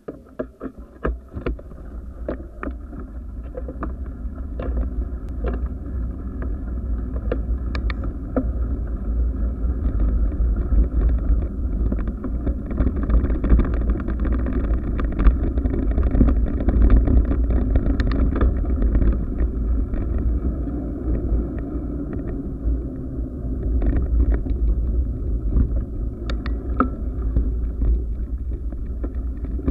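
Wind rumble and buffeting on the microphone of a moving action camera, with scattered clicks and knocks from the camera's mount. It builds over the first ten seconds or so, then holds steady.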